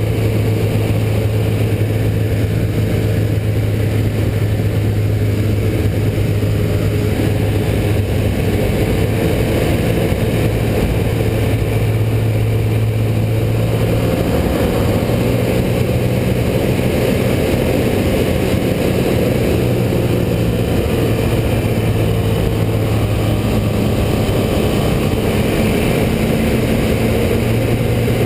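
Rotax 912 four-cylinder boxer aircraft engine, fitted with an AeroInjector, and its propeller running steadily in flight, heard from inside the cockpit with a rush of air noise. The engine note wavers for about ten seconds around the middle, then steadies again.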